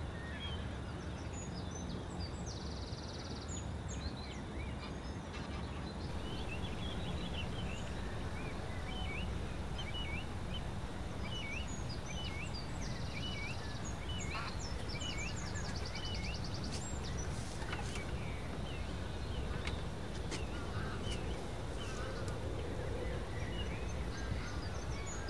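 Many short bird calls scattered throughout, with greylag geese and mallards calling among them, over a steady low background noise.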